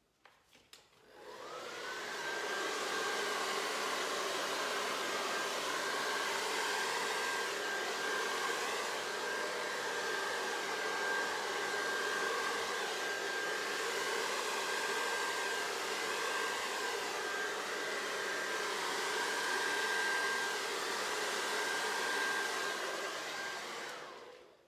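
Hair dryer blowing acrylic paint across a canvas. Its motor spins up with a short rising whine about a second in, then runs with a steady whine and rushing air, and is switched off just before the end.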